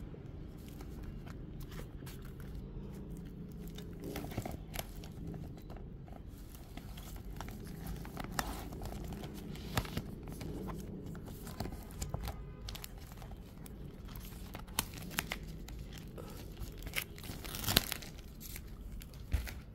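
Clear plastic wrapping crinkling and rustling as album photocards and inserts are handled and unpacked, with scattered small clicks and taps. The loudest crackles come near the end.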